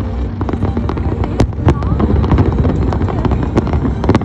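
Fireworks display: a rapid run of sharp bangs and crackles, several a second, over a continuous low rumble.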